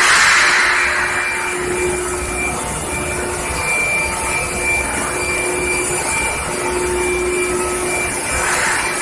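Induction heating line for welded steel pipe running: a steady industrial machine noise with a few faint held tones over a hiss. The hiss is louder at the start and fades within the first second.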